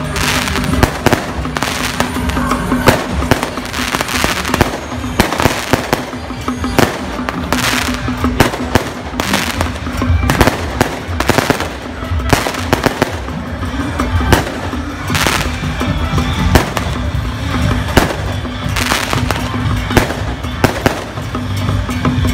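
Firecrackers and ground fireworks going off in a string of sharp bangs and crackles at irregular intervals, with procession music underneath.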